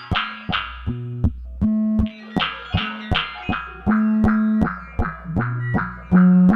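Modular synthesizer patch playing a sequenced line of short, plucked-sounding notes, about three a second, each starting with a sharp click, over a held bass note that changes pitch every second or so.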